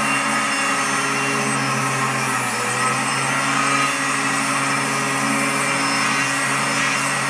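Electric angle grinder running with its disc against a steel bar: a steady motor hum under the continuous scraping grind of the disc on metal.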